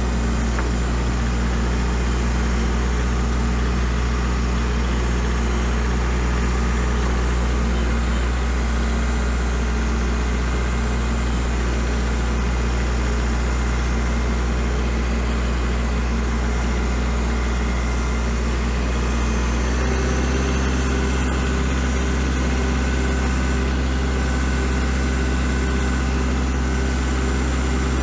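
Kubota L4701 tractor's diesel engine running steadily under load while pushing snow, heard from the operator's seat; its note shifts about twenty seconds in.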